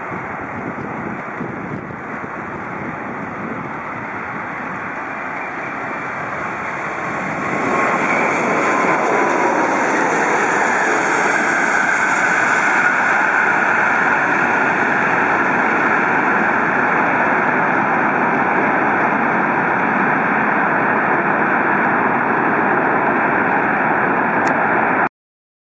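Jet noise from the four Rolls-Royce Trent 500 turbofans of an Airbus A340-600 landing. It swells about eight seconds in as the aircraft passes close and touches down, with a faint whine gliding down in pitch. It then stays loud through the rollout and cuts off suddenly near the end.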